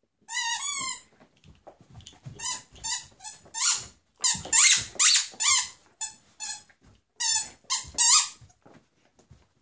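A squeaky dog toy being squeezed over and over in a Great Dane's jaws as it chews and shakes it. There is one long, wavering squeak at first, then a quick run of a dozen or more short, high squeaks.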